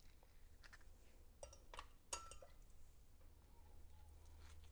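Near silence: a low steady hum with a few faint taps around the middle, as of ingredients being handled.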